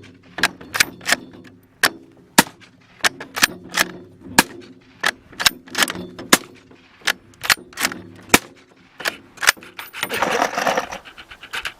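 A rapid string of gunshots, about two a second and unevenly spaced, from firearms fired through a suppressor under test. About ten seconds in, a short burst of hissing noise rises between the shots.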